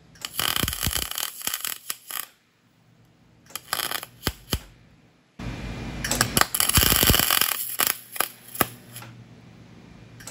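MIG welder arc crackling in three bursts, short ones near the start and a longer one of about four seconds later, as a nut is welded onto a snapped crankcase bolt to extract it. A low hum runs under the longest burst.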